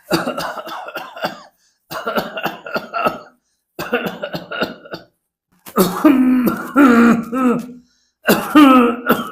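A person coughing in demonstration: three runs of short, dry coughs, then from about halfway louder coughs with a strong hoarse, voiced tone to them. The speaker takes this kind of cough as the sign of a problem with the larynx.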